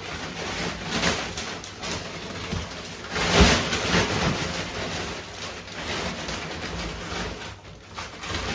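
Plastic-wrapped packs of sanitary towels and shopping bags being handled, rustling, with a knock as a pack is set down on a wooden table about three and a half seconds in.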